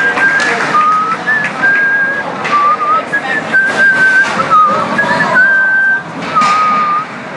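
Hockey crowd celebrating at the end of the game: cheering and clapping, with a long run of shrill whistled notes that jump between a few pitches.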